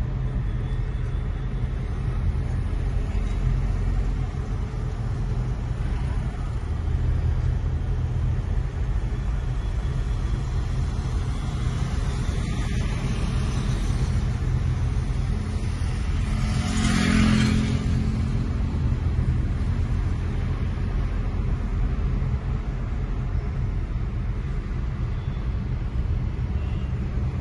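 Steady low engine and tyre noise heard from inside the cabin of a Maruti Suzuki Wagon R running on CNG at road speed. A brief swell of noise rises and falls about two-thirds of the way through.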